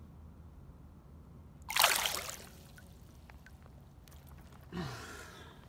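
Water splashing in shallow river water as a smallmouth bass is let go and kicks free from the hand: one loud splash about two seconds in, then a second, softer splash near the end.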